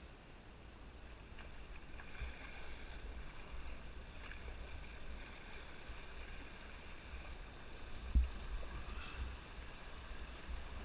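Canoe paddling through a shallow river riffle: rushing, splashing water around the hull over a steady low rumble, with one sharp thump about eight seconds in.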